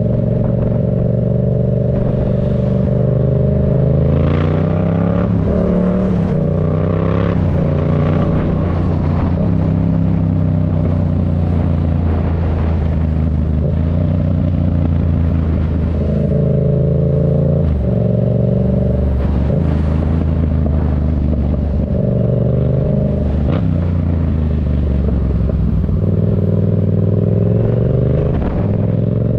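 Yamaha MT-07's 689 cc parallel-twin engine through an aftermarket Black Widow exhaust, ridden under way. Its pitch climbs as it pulls through the gears and drops at each upshift, with spells of steadier running between.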